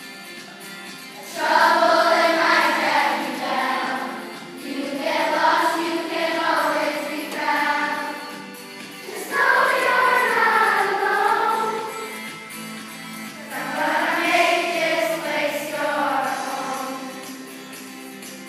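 A group of voices singing a song together as a choir, in four long phrases with quieter stretches of music between them.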